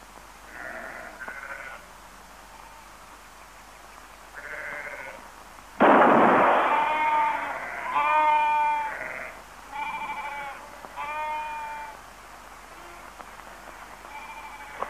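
Lambs bleating: a few faint high bleats, then a sudden loud bang about six seconds in, followed by about four loud, drawn-out bleats.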